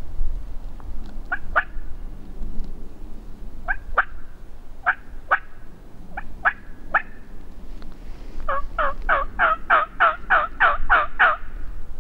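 Turkey yelping: scattered single and paired yelps, then a fast run of about a dozen yelps near the end, each note dropping sharply in pitch.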